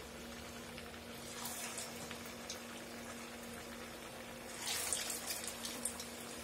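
Hot oil sizzling and bubbling in a kadai as rice-batter medu vadas deep-fry, with a louder burst of crackling and spitting about five seconds in as a fresh vada goes into the oil.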